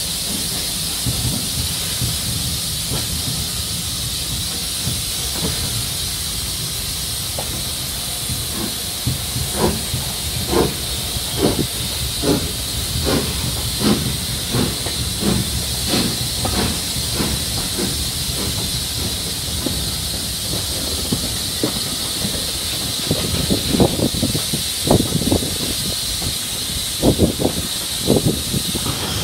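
LNER B1 class 4-6-0 steam locomotive No. 1264 pulling a train away, heard from a carriage behind: a steady hiss of steam, with exhaust chuffs of about two a second starting about a third of the way in and growing sharper near the end.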